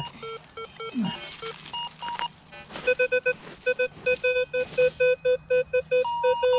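Minelab metal detector beeping as its coil is swept over the ground. At first the tones are short and scattered. From about three seconds in comes a fast run of repeated beeps, low and higher tones mixed, signalling a buried metal target.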